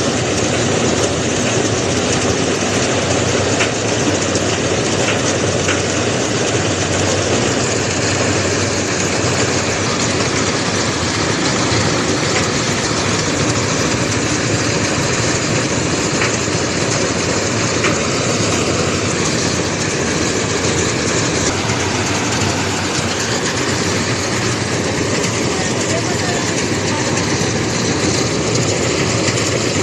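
Rice harvesting machine's engine running steadily, with no change in level.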